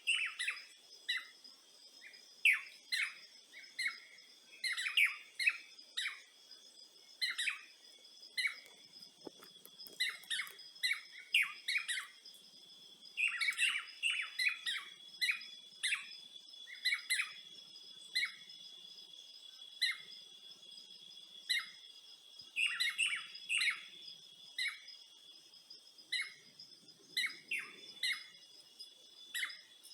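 Birds chirping in many short, quick calls, over a steady high-pitched drone of insects.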